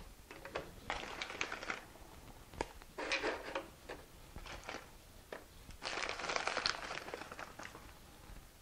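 Paper wrapper of German's sweet chocolate crinkling in a few short bursts, the longest about six seconds in, with a few light clicks as chocolate squares are set down on a bed of dry-roasted peanuts.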